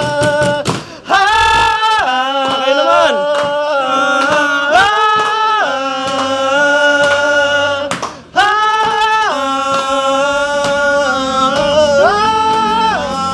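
Men singing a cappella in long held notes that step up and down in pitch, breaking off briefly about a second in and again about eight seconds in.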